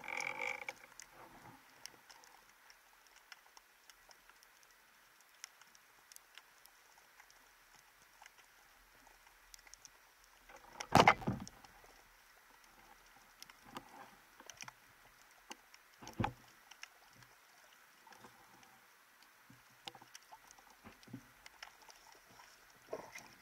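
Underwater: a band-powered speargun fires, one loud sharp knock about halfway through, against faint steady underwater crackling and small clicks. A softer knock follows about five seconds later.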